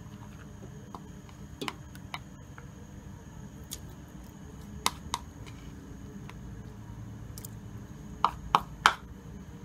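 Scattered light clicks and taps of a kitchen utensil as pounded spice paste is scraped into an aluminium pot of coconut milk, with three in quick succession near the end, over a low steady hum.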